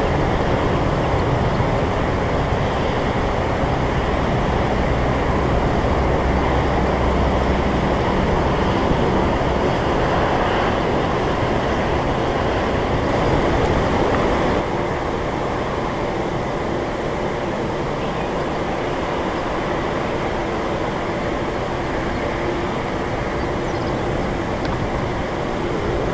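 Jet engine noise of a Boeing 747-400 freighter landing and rolling out on the runway. It is a loud, steady rush that steps down in level about fifteen seconds in.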